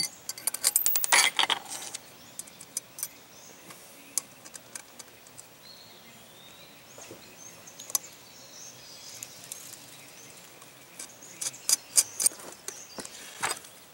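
Small metal clicks and clinks of washers and nuts being handled and fitted onto the Weber carburetor's mounting studs, in clusters during the first couple of seconds and again near the end, with scattered ticks in between.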